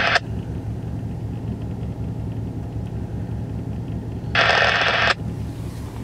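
Steady low rumble of a vehicle idling, with two short bursts of hiss: one that cuts off just after the start and one lasting under a second about four and a half seconds in.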